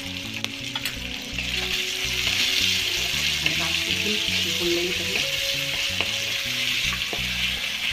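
Sliced onions sizzling in mustard oil in a kadhai, stirred with a wooden spatula. The sizzle swells about a second and a half in, with a few light scrapes of the spatula against the pan.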